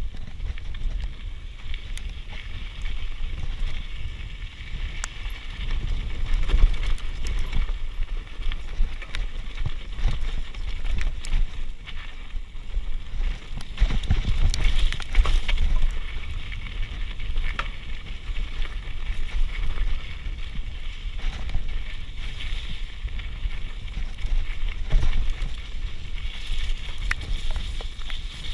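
Mountain bike riding over a rough dirt trail: a low rumble of wind on the microphone with tyre noise and frequent short rattles and clicks from the bike over bumps.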